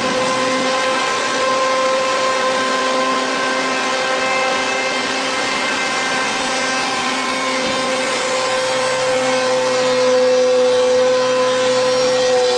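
Fulltek PA-3713 CNC machining center's spindle running a large profile cutter through solid wood: a steady whine over the hiss of the cut.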